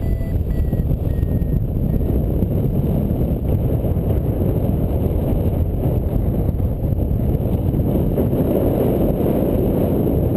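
Wind rushing over the microphone of a paraglider in flight, a steady heavy noise. A few short, high beeps from the flight variometer sound in the first second or so, then stop.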